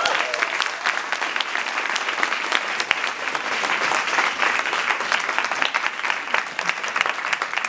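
Audience applauding steadily: many pairs of hands clapping at once.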